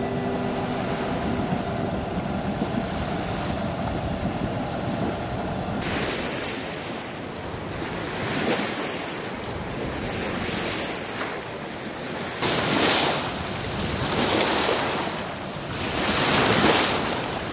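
Seawater sloshing and washing around small floating ice chunks, with wind noise on the microphone. About six seconds in, the wash gets louder and comes in surges every couple of seconds.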